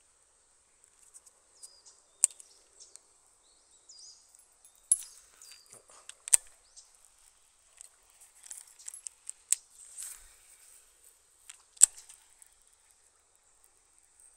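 Crickets trilling steadily on one high pitch, with scattered sharp clicks and taps, the loudest about six and twelve seconds in.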